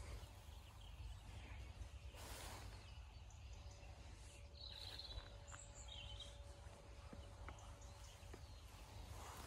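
Faint outdoor ambience: a steady low rumble, with a few short bird chirps about halfway through and a faint steady hum.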